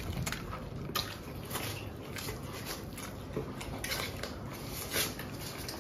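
Faint, irregular clicks and light taps of someone eating from a plate, spaced unevenly about a second apart.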